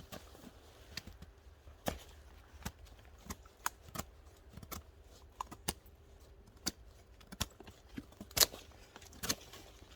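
Cold Steel Ranch Boss 2 carbon-steel blade cutting and chopping into dry wood: a run of sharp knocks and clicks at uneven intervals, one or two a second, with the loudest strike about eight and a half seconds in.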